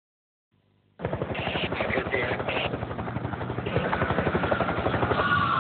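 Helicopter rotor chop, a steady rapid thudding, starting about a second in. Near the end a siren begins to wail, falling in pitch.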